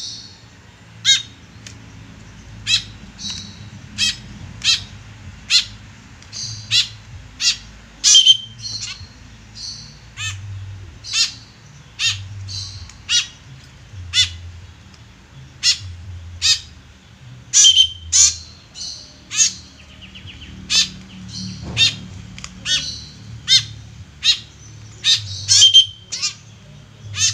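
Fledgling white-breasted woodswallow (kekep babi) giving short, sharp begging calls over and over, one or two a second, as it is hand-fed.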